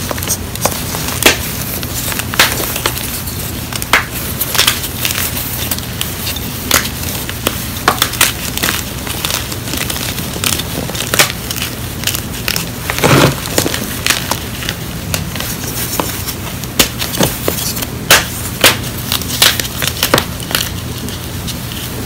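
Hands crushing and crumbling blocks of gym chalk (magnesium carbonate) over a bed of broken chalk: a continuous gritty crunching with sharp snaps at irregular moments as pieces break apart.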